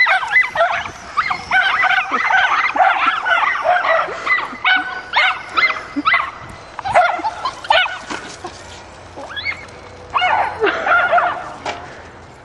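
Excited dogs yipping and barking in quick, high-pitched runs, the sound of an excited chase. The barking thins out after about eight seconds, bursts again around ten seconds, and tails off near the end.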